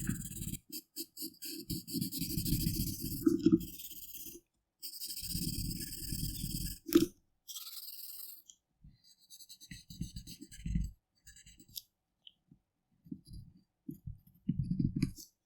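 Colouring on paper: a drawing tool rubbing back and forth across the page in long strokes, then shorter, lighter ones, with a sharp click about halfway through.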